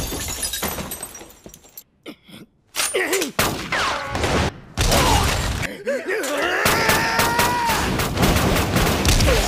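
Anime fight sound effects: crashing and smashing impacts, a brief lull about two seconds in, then more thuds and blows with men's groans and a drawn-out wavering cry near the end.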